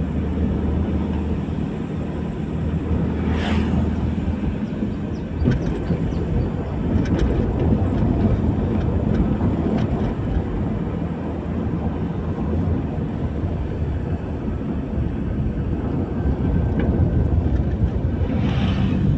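Car engine and road noise heard from inside the cabin: a steady low drone while driving. About three seconds in and again near the end, a brief rushing swell comes and goes, the second as another vehicle passes close by.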